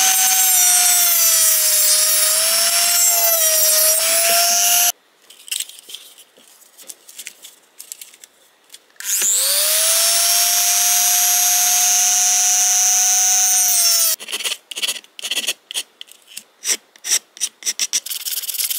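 A Dremel rotary tool with a cut-off wheel cutting plastic mounting tabs off a car air-vent housing. Its high steady whine sags a little in pitch as it bites and stops about five seconds in, leaving light scrapes and clicks. About nine seconds in the tool spins up again with a rising whine, runs until about fourteen seconds, and is followed by a run of short clicks and taps.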